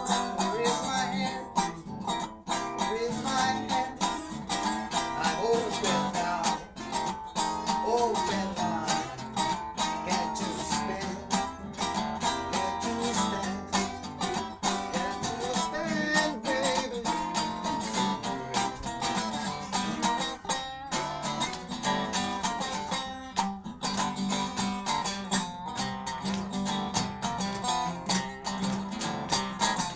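Blues band playing a song, guitar to the fore over a steady beat.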